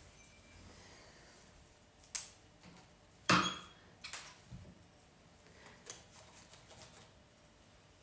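Pruning shears snipping plant stems: a few separate sharp snips and clicks, the loudest about three seconds in, with light rustling of the cut greenery.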